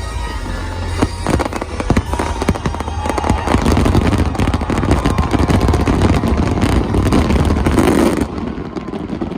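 Fireworks bursting in quick succession over show music, thickening into a dense barrage of bangs and crackle that drops off sharply near the end.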